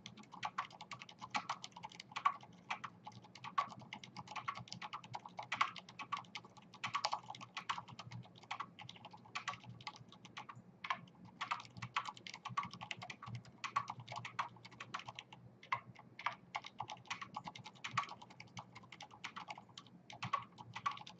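Continuous typing on a Leopold FC980M mechanical keyboard with Cherry MX Silent switches and greased stabilizers: a fast, irregular stream of keystrokes with a few short pauses.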